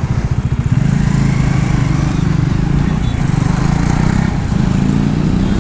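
Bajaj Avenger Street 160's single-cylinder engine running at low speed and misfiring now and then: the petrol is running out.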